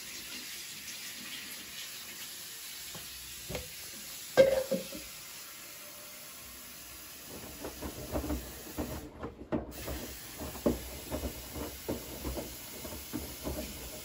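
Bosch front-loading washing machine filling with water with a steady hiss, the drum starting to turn with laundry sloshing and thudding in the water from about seven seconds in. A single knock about four seconds in.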